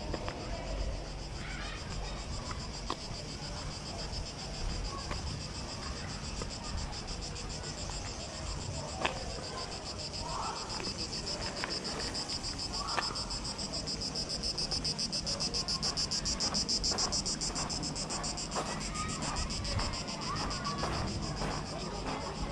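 Cicadas buzzing, a continuous high, rapidly pulsing drone that swells louder about halfway through and then eases, with a low rumble of wind on the microphone underneath.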